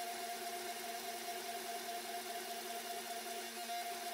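Hydraulic forging press running with a steady hum from its pump and motor as the dies squeeze a hot billet to set the forge welds.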